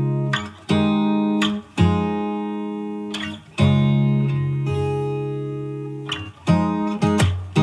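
Background music: acoustic guitar chords strummed and left to ring out, a new chord every second or two.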